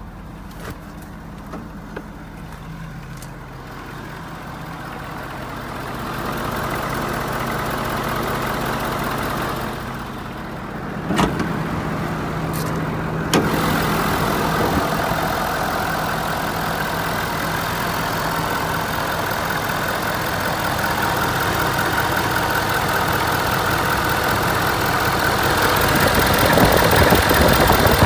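Ford 6.7 L Power Stroke V8 turbodiesel idling steadily. It is muffled at first and becomes louder and fuller with the hood open, close to the engine. Two sharp knocks come about halfway through.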